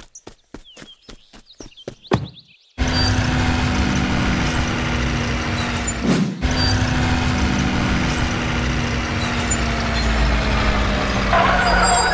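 Quick, even clicking, about four a second, then a loud, steady vehicle-engine sound effect with a low hum and deep rumble that starts suddenly a little under three seconds in. It breaks off for a moment about halfway through, then runs on.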